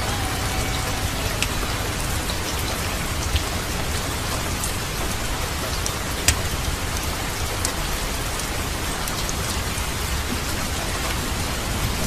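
Steady rain, an even hiss of drops on a surface, with a few isolated sharp crackles, from a rain-and-fireplace ambience track.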